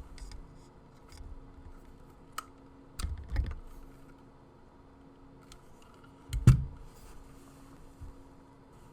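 Mechanical keyboard with Cherry MX Red linear switches (Ducky Mini Mecha 2), keys pressed one at a time in a sparse run of clicks. There is a louder pair of strokes about three seconds in, and a heavier, deeper keystroke at about six and a half seconds is the loudest.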